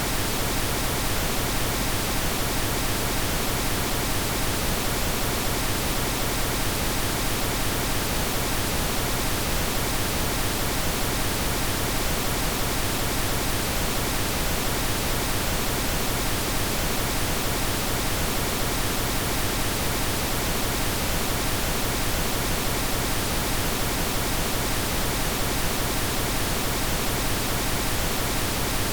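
Steady generated pink noise: an even, unchanging hiss spread across all pitches.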